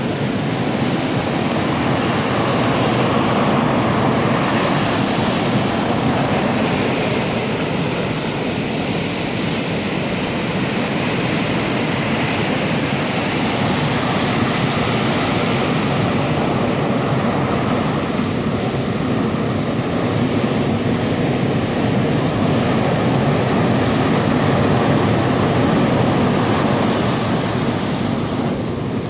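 Storm swell breaking onto a sandy beach: a continuous wash of surf that swells and eases a few times, loudest about 4, 14 and 25 seconds in.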